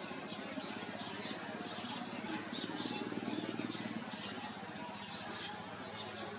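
Small birds chirping repeatedly, several short high calls a second, over a steady low hum.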